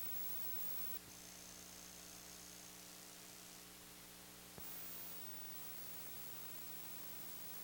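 Faint steady mains hum and hiss from an old videotape recording's audio track, with a single soft click about four and a half seconds in.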